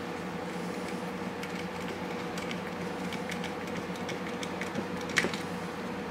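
Hand screwdriver turning a small screw with a washer into a wooden frame: faint, irregular clicks and creaks, with a sharper click about five seconds in, over a steady background hum.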